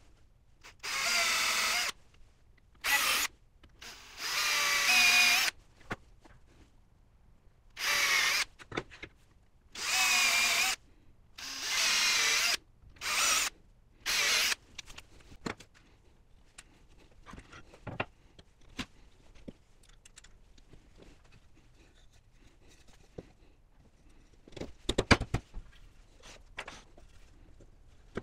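Electric drill running in about eight short bursts, its motor whine wavering as the bit works into the wood, drilling holes for joining the wooden panels with dowels. After that, only light handling clicks, and a few knocks near the end.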